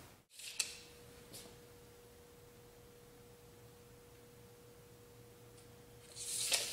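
A faint, steady pure tone held at one pitch, with two small clicks near the start and a brief rustle near the end.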